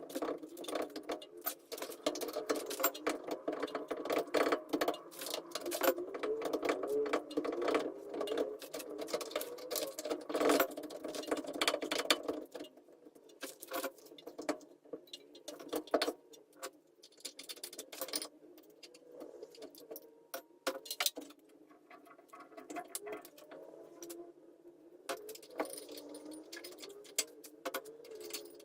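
Hand tools and metal brake parts clicking and clinking during work on a car's rear brake caliper and pads, with many quick knocks that are busiest in the first half.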